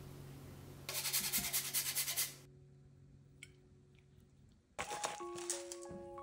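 A rapid, rough rasping scrape lasts about a second and a half. It is followed by soft instrumental music with sustained notes from about five seconds in.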